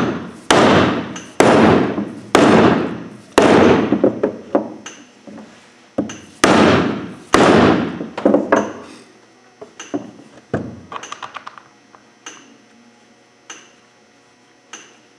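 Dead blow hammer striking a planter closing wheel to drive its halves together around a Yetter Twister insert: about eight heavy blows, each ringing out briefly, over the first eight seconds, then a few lighter taps and clicks.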